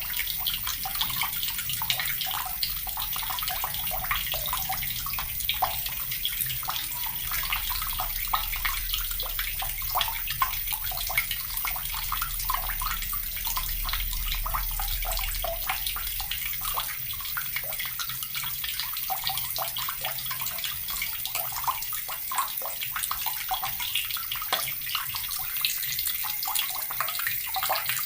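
Water tap running steadily, the stream splashing with many small drips and splashes.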